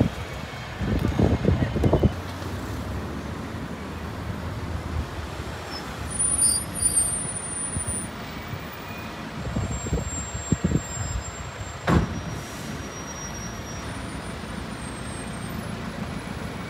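Urban road traffic with buses and cars going by: a steady engine and tyre rumble, broken by several short knocks and thumps.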